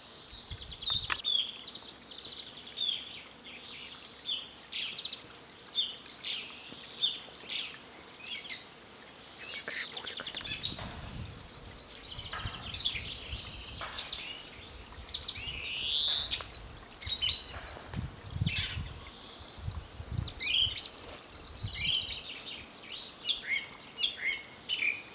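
Several songbirds singing at once: many short chirps, whistles and trills overlapping, with no pause.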